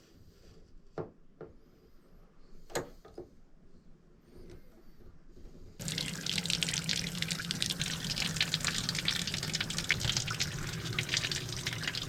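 A few light knocks. Then, about six seconds in, a tap is turned on and water runs steadily, splashing into the bathtub as it is rinsed.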